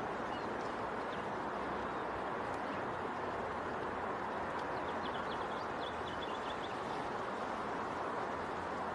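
Steady outdoor background hiss, with a quick run of small bird chirps about five seconds in.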